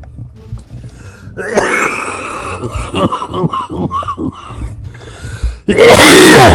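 A man coughing and wheezing in strained fits, starting about a second and a half in. Near the end comes one very loud cough that overloads the recording.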